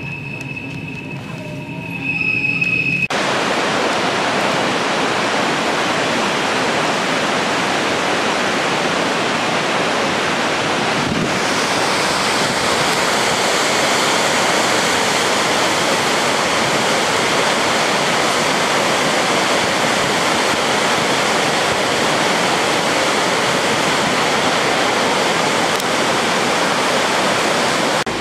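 Railway wheels squealing briefly with a steady high tone. About three seconds in, the loud, steady rush of a large waterfall close by takes over: Kjosfossen, beside the Flåm Railway line.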